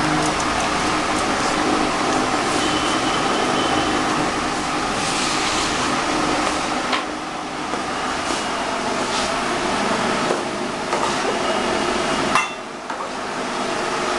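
Steady machine hum, like a room fan or cooler running, with a few light clicks and knocks scattered through it.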